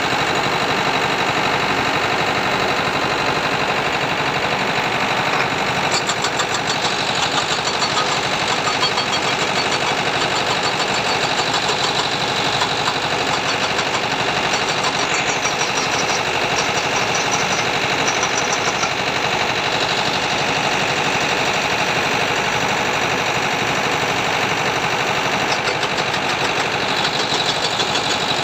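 Diesel engine of a Kobelco SK200 excavator running steadily with a fast, even throb, and a higher rattle that comes and goes.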